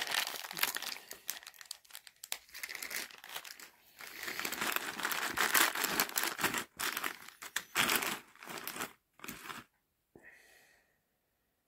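Clear plastic bag crinkling in irregular bursts as it is handled and opened by hand, stopping shortly before the end.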